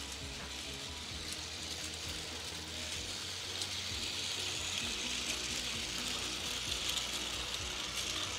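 Plarail toy train (Train Suite Shiki-shima) running on its slow setting on plastic track, its small electric motor and gearbox whirring steadily. The sound grows louder as the train comes near, with quick clicks from the wheels and gears thickening toward the end.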